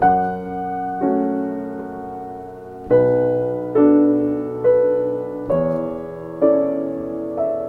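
Background music: slow, soft piano chords struck about once a second, each note left to ring and fade.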